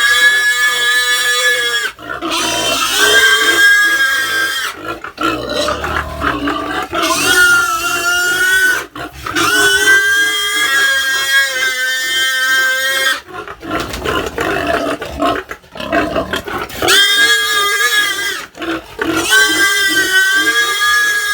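Pig squealing in a run of long, loud, high calls, each lasting one to four seconds, with short breaks between them.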